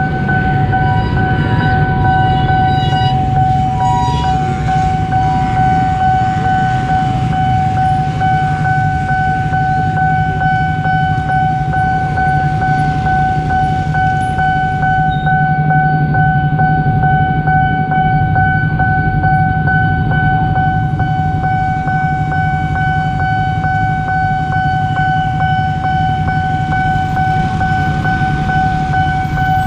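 Railway level-crossing alarm sounding one continuous steady tone while a train runs through the crossing with a loud low rumble.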